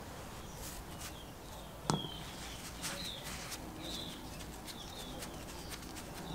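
A hand screwdriver with a hex bit driving a screw into the metal plate over a diaphragm air compressor's diaphragm: a sharp metallic click about two seconds in as the bit seats, then faint ticks and short high squeaks as the screw is turned.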